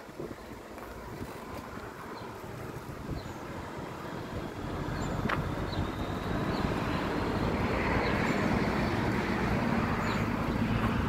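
Scania R540's V8 diesel engine hauling a loaded nine-axle grain truck under load, its low hum growing steadily louder and strongest from about halfway through. Wind buffets the microphone.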